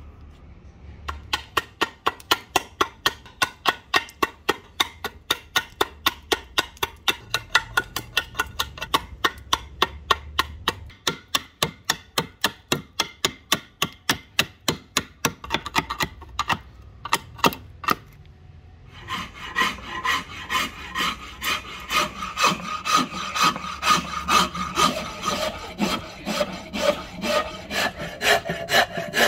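Quick, evenly spaced strikes of a blade chopping waste from a kerfed rosewood axe-handle blank, about three a second. After a short pause near two-thirds of the way through, a flat file rasps back and forth along the rosewood in steady strokes.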